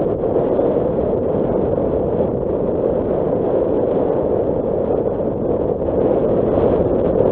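Steady driving rumble of a Nissan Qashqai on a dirt track: an even noise of tyres on the loose surface and wind, with no distinct engine note.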